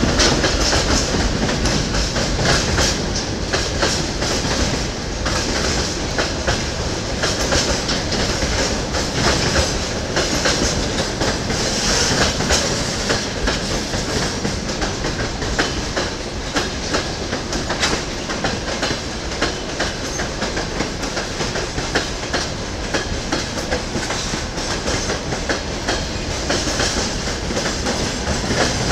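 Freight train wagons (boxcars, refrigerator cars and open gondolas) rolling past at speed, their wheels clicking over the rail joints in a steady clatter over a continuous rolling rumble.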